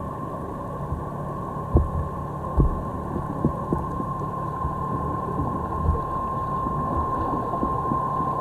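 Underwater sound heard muffled through a sealed action-camera housing: a steady low hum with a thin steady high tone, and a few dull thumps, the strongest about two and two and a half seconds in.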